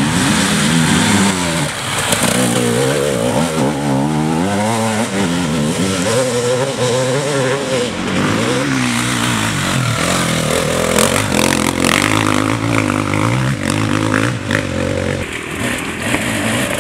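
Off-road dirt bike engines revving hard, the pitch rising and falling again and again as the throttle opens and closes, with some clatter in the second half.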